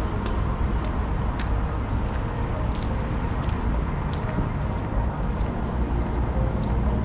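Steady low rumble of city traffic, with light irregular clicks scattered over it.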